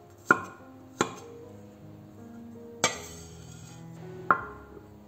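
Four separate sharp knocks of a cleaver and a small ceramic bowl against a wooden chopping board, the last with a short ring, over steady background music.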